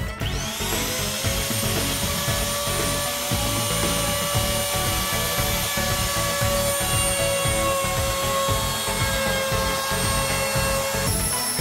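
An electric power tool's motor spins up with a quick rising whine and runs steadily for about eleven seconds, its pitch sagging slightly, then cuts off near the end.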